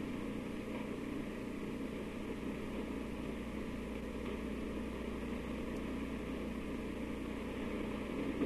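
Steady background hiss with a low hum from an old tape recording; no other sound stands out.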